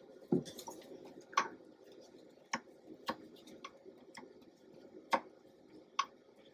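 A silicone spatula scraping cake batter from a glass mixing bowl and the hand mixer's beaters, with the mixer switched off. It gives soft, scattered clicks and taps, a few to the second, as the spatula knocks against the glass and the metal beaters.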